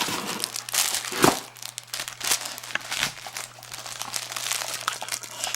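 Plastic crinkling and rustling in irregular bursts as a dog toy with crinkle material and its wrapping are handled.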